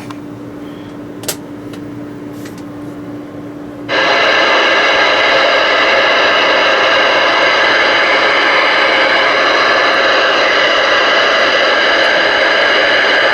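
A low steady hum with a single click about a second in. About four seconds in, loud, steady radio receiver static cuts in abruptly from the Galaxy DX-99V2's speaker: the open receiver hissing on an empty channel.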